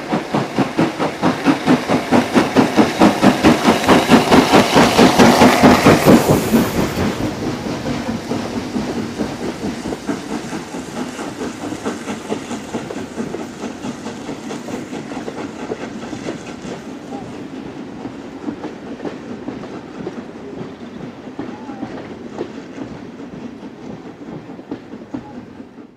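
Maunsell S15 class 4-6-0 steam locomotive No. 847 working hard as it departs, with sharp rhythmic exhaust beats that grow loud as it passes close, peaking about five or six seconds in. After that the carriages it is hauling roll past with a rhythmic rattle that slowly fades.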